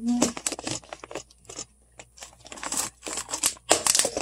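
Quick, irregular clicks, rustles and crinkles of things being handled on a kitchen counter right next to the microphone, in two busy clusters.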